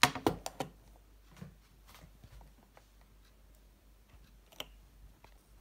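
Makeup brushes clicking and clattering against each other and their cup-shaped holder as they are handled. A quick cluster of clicks comes at the start, then scattered single clicks, with one sharper click near the end.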